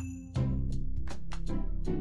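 Self-made GarageBand background music with sustained low notes and a steady drum beat, which gets louder about a third of a second in.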